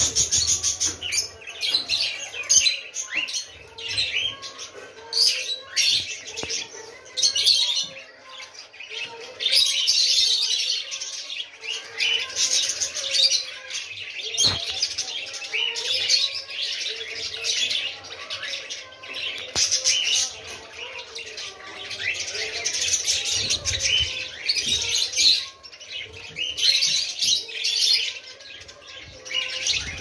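A flock of caged budgerigars chattering: a dense, continuous stream of high chirps and warbles that swells and fades.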